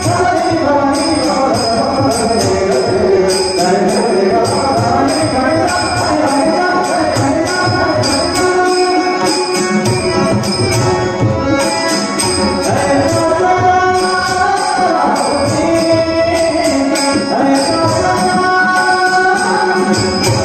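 Marathi bhajan music: a harmonium playing the melody over a steady beat of hand drums and jingling percussion.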